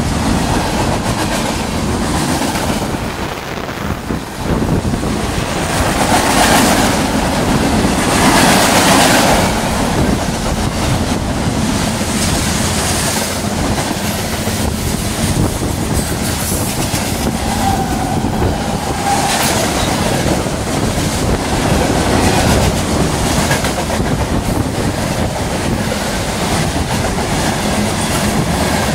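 Freight cars of a long CSX mixed freight train, including boxcars, tank cars and covered hoppers, rolling past close by: a loud, steady rumble and clatter of steel wheels on the rails.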